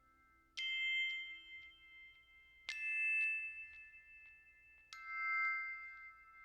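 Background music: three struck bell-like notes about two seconds apart, each ringing out and fading.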